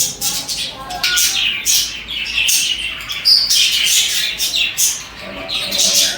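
Budgerigars chirping and chattering together: a quick, continuous run of short, high chirps, with warbling notes coming in near the end.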